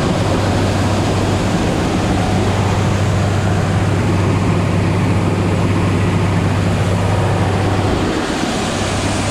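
A John Deere 8820 combine running steadily while shelling corn: a loud, even diesel drone with machinery noise. The higher part of the hum drops away about eight seconds in.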